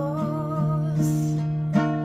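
Acoustic guitar strummed steadily, with a woman's sung note wavering over it and fading out about half a second in, leaving the guitar alone.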